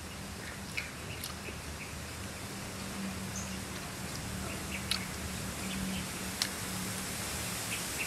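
A person eating fried pork ribs: chewing and tearing meat, with scattered short clicks and smacks over a steady low background hum.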